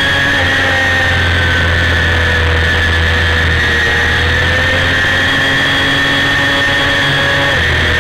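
1990 Honda CBR250RR's 249 cc inline-four engine at high revs under race throttle, a steady high-pitched whine that sags a little in pitch midway and drops briefly near the end, with wind rush over the bike-mounted camera.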